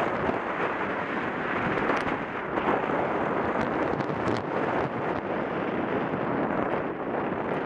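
Wind rushing over the camera microphone during a fast downhill ride, a steady noisy rush with a few faint clicks and rattles.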